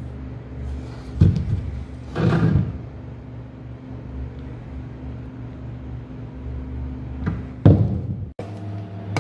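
Speaker cabinets being handled and set down on a workbench: a thump about a second in, a longer scraping thud around two seconds in, and another thump near the end, over a steady low hum.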